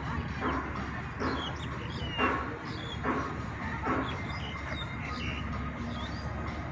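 Small birds chirping in short high calls over a steady outdoor rumble, with soft knocks at a regular pace of about one a second.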